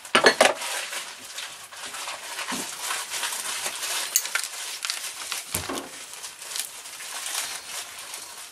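Old Maytag gas engine parts clinking and rattling against each other and the workbench as they are handled, with a cluster of sharp clicks at the start and one heavier knock about five and a half seconds in.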